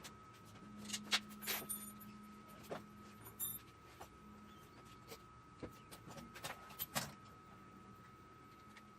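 Scattered light clicks and metallic clinks of tools and parts being handled during work on a riding lawn mower, busiest in the first couple of seconds and again near the seventh second, over a faint steady hum.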